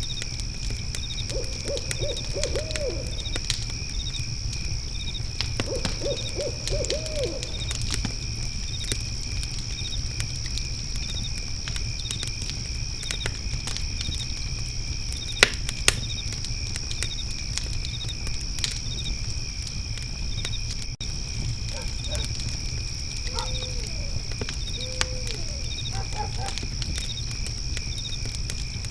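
Fire pit crackling with scattered pops, two louder pops about halfway, over a low rumble, with crickets chirping steadily. Short series of low hooting calls come several times.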